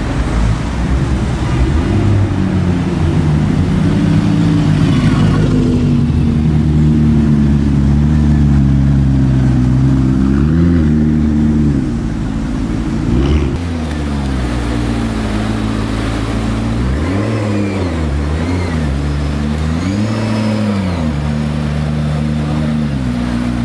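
McLaren P1's 3.8-litre twin-turbo V8 running at low speed, then blipped in several short revs that rise and fall in the second half.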